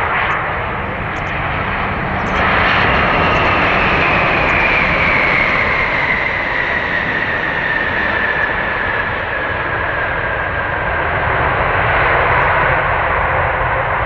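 Boeing 787-8's GEnx-1B turbofan engines during touchdown and landing rollout: loud jet noise that grows louder about two and a half seconds in, with a whine falling slowly in pitch.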